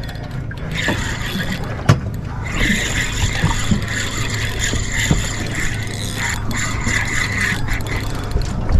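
Penn spinning reel being cranked to reel in a hooked fish, its gears whirring steadily, with one sharp click about two seconds in.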